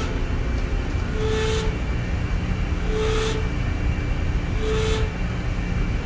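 A half-horsepower refrigerant recovery machine running with a steady low hum as it pumps R404A refrigerant into a small empty cylinder. A short, higher tone with a burst of hiss comes back about every 1.7 seconds.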